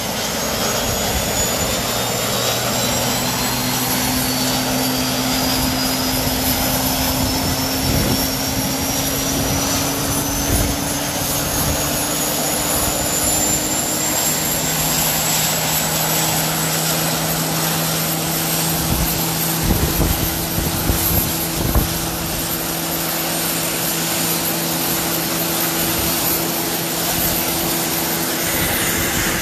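Rolls-Royce Gem turboshaft gas turbine engine running: a steady, dense rushing noise with a high whine that rises in pitch over the first half and then holds, and lower hum tones that step up in pitch twice.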